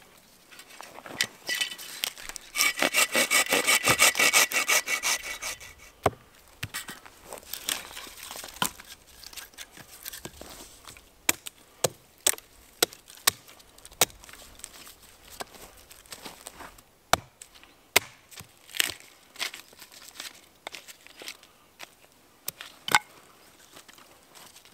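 A hand saw rasping through a dead branch with quick back-and-forth strokes for several seconds. Then a small hatchet strikes wood on a stump chopping block in sharp single knocks, roughly a second apart, as sticks are split and trimmed.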